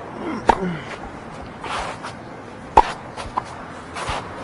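Tennis ball struck with rackets during a serve-and-volley rally: three sharp pocks, the loudest a little under three seconds in.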